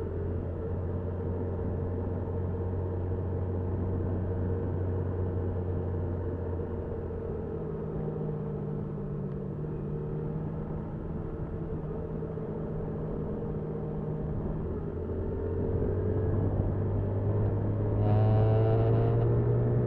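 Motorcycle engine picked up by the bike's dash recorder, running at low, steady revs with the throttle eased off. Near the end the revs rise in pitch as it accelerates.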